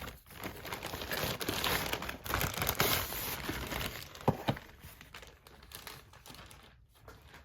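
Shipping packaging being torn open and crinkled by hand, a dense rustling for about four seconds, then a sharp click and quieter handling near the end.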